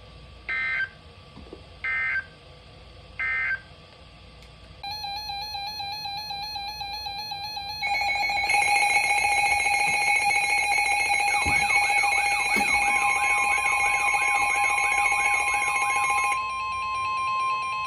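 Three short, shrill SAME data bursts from NOAA Weather Radio, the end-of-message code closing the warning just read. About five seconds in, electronic weather-alert alarms start: several beeping and warbling tones overlapping, louder from about eight seconds in, with a steady attention tone joining later.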